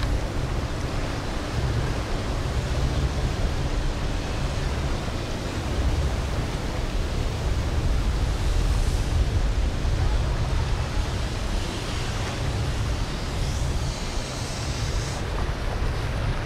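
Steady low rumble of wind buffeting the microphone over a river, mixed with the drone of boat engines and the wash of water, with a brief hiss near the end.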